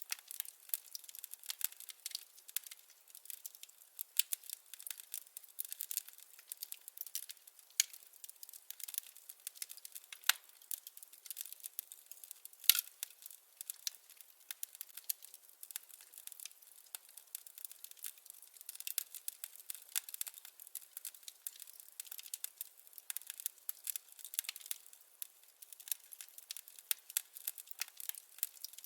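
Wood fire crackling: a dense, irregular run of small pops and snaps, with two louder pops about a third of the way through, the second one the loudest.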